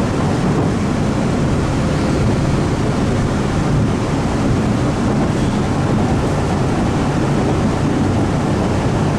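Steady running noise heard from inside a moving CRRC-built MBTA Orange Line subway car: wheels on rail and running gear, even throughout with no sudden events.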